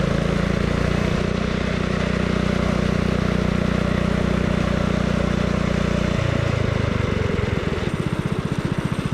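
Mini trike's engine running at steady high revs while riding, then falling off about six seconds in and slowing to a low, pulsing idle near the end.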